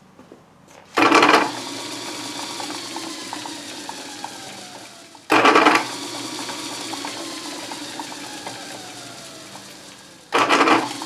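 Old repulsion-induction motor driving a metal lathe through its belt, started three times about five seconds apart. Each start is a loud half-second burst, followed by a steadier whirr whose tone slowly falls. It now starts each time under a light load, which the owner hopes means the repair to its starting mechanism has cured the unreliable starting.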